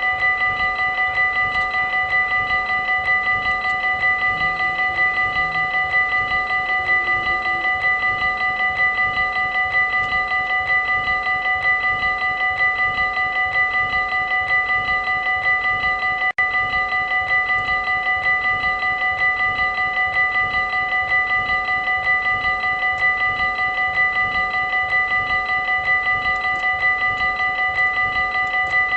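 Dutch railway level-crossing warning bell ringing in a fast, even, unbroken run of metallic strokes, the signal that a train is coming and the crossing is closing. There is one split-second break about halfway through.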